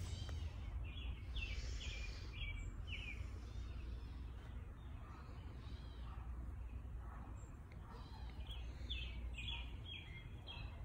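Wild birds chirping in quick series of short, falling notes, one run about a second in and another near the end, over a steady low rumble of outdoor background.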